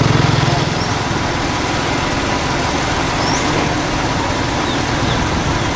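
An engine running steadily with a fast, even pulsing, a deeper hum in the first second easing back to a constant level.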